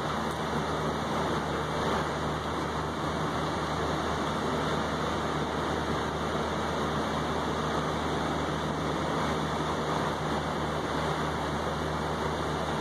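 Steady rain falling on a balcony's wet railing and tabletop, an even hiss with no single drops standing out, over a steady low rumble.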